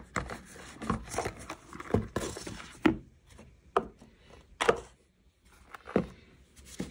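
Unboxing handling noise: a zippered hard-shell carrying case is lifted out of a cardboard box and set down and slid on a wooden desktop, giving a string of light knocks and scuffs, about eight in all.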